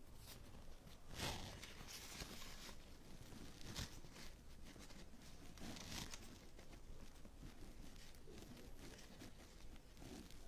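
Faint, scattered rustles and light scrapes of a thin plastic stencil sheet being shifted and lined up by hand on a wooden board.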